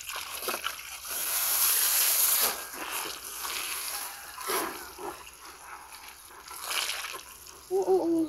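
Shallow muddy water splashing and sloshing as hands grope through it and bare feet wade, loudest for about a second and a half starting a second in, with smaller splashes later. A short vocal sound comes just before the end.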